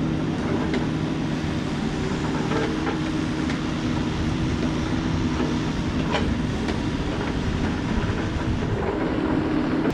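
Mini excavator's diesel engine running steadily, with a few sharp metallic clanks from the machine as it works.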